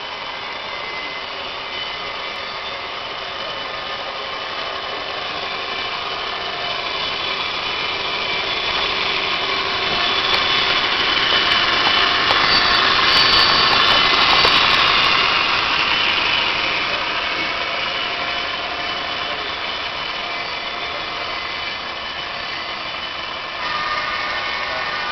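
Two HO-scale Broadway Limited Paragon2 AC6000CW model diesel locomotives running past with their onboard diesel engine sound and the wheels rolling on the track, growing louder to a peak about halfway through, then easing off as the autorack cars roll by.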